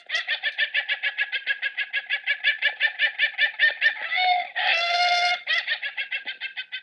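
Recorded chicken call: a fast run of short clucking notes, about seven a second, broken by a longer drawn-out cry a little past the middle.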